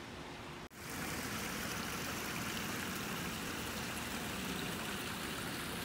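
Water running over rocks in a garden pond or stream, a steady even rush that starts sharply after a brief gap less than a second in.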